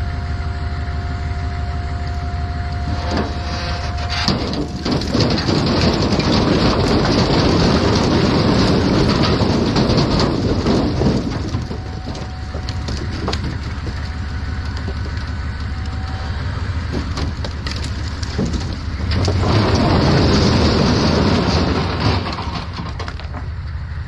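A truckload of firewood sliding and tumbling out of a pickup bed onto the ground in a long, rattling clatter of logs, with the truck's engine idling underneath. The clatter builds a few seconds in, eases off midway and surges again near the end.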